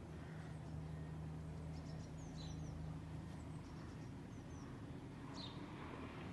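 Quiet outdoor ambience: a steady low rumble and hum, with a few short, faint, high-pitched bird chirps about two and a half seconds in and again around five seconds.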